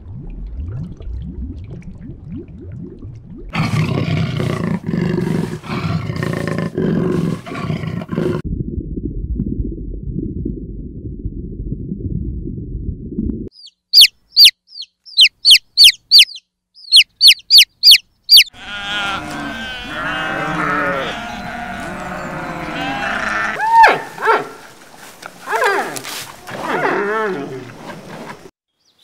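A run of different animal sounds. In the middle, about ten short, high peeps from baby chicks in quick succession. A low rumbling stretch comes before them, and a dense run of overlapping calls that bend in pitch follows.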